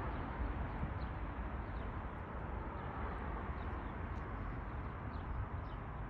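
Steady outdoor background rumble, heaviest in the low end, with faint high bird chirps dotted through it.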